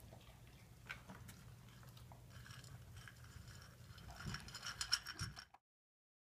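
Faint crunching and small clicks of a Portuguese Water Dog eating kale and kibble from a bowl, over a low steady hum, busier about four seconds in. The sound cuts off suddenly about a second before the end.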